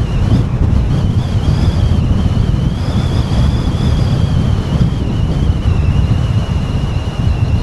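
Wind buffeting the microphone in a moving car, a loud, heavy low rumble, with a thin high whistle above it that wavers slowly in pitch.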